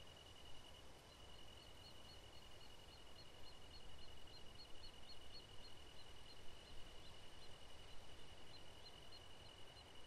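Faint insects singing in the grass: one steady high trill throughout, joined about a second in by short, higher chirps repeating evenly about three times a second.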